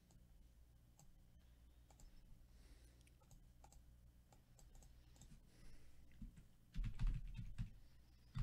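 Scattered computer mouse clicks, then a quick burst of typing on a computer keyboard near the end.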